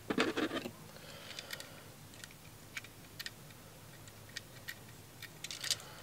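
Small clicks and rattles of a plastic GFCI receptacle and copper ground wire being handled at a plastic outlet box. A burst of clatter comes at the start, then scattered single ticks, and another quick cluster of clicks near the end.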